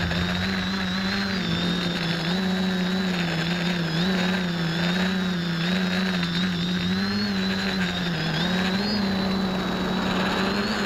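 X550AIOP quadcopter's motors and propellers whirring steadily in flight, heard from on board: a hum with a thin high whine above it, the pitch wavering slightly as the throttle changes.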